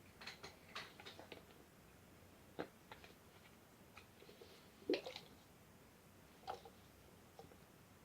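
Faint, scattered clicks and small squishes of hands handling sticky slime ingredients and their containers, a few sharper ticks standing out about a third and two-thirds of the way through.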